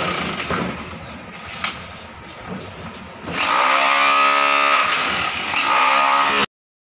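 Hand-held corded electric drill boring into the steel-and-fiber-cement slab deck. The motor whine sags and recovers in pitch under load, drops away after the first half second, then runs hard again from about three and a half seconds in with a brief dip, and cuts off suddenly near the end.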